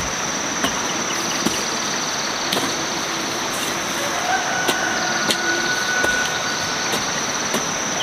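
A garden hoe striking and scraping into dry soil, several separate chops at uneven intervals, over a steady high-pitched chirring of insects.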